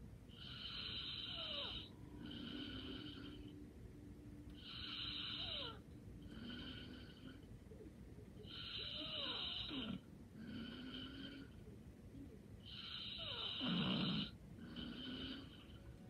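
Light snoring in a slow, even rhythm: four breaths, about one every four seconds, each a longer snore followed by a shorter, softer one. The fourth snore, near the end, is the loudest.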